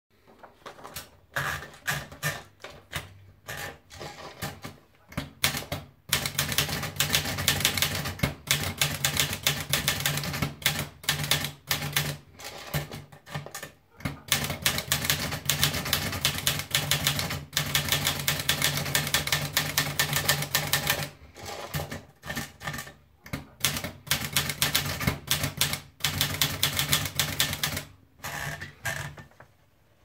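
Olivetti Dora manual portable typewriter. A few scattered clicks come as the paper is fed in, then from about six seconds in there are fast runs of keystrokes with the typebars striking the platen. The runs are broken by short pauses and stop just before the end.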